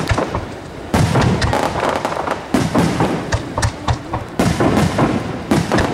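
Fireworks bursting in a rapid, dense barrage, many sharp bangs and crackles overlapping with their echoes.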